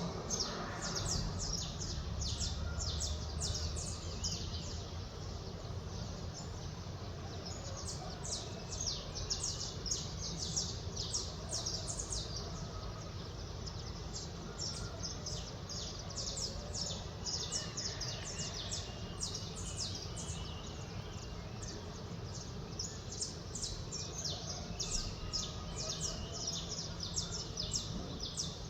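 Birds chirping in a dawn chorus: many short, high chirps in quick runs, over a steady low rumble of distant city noise.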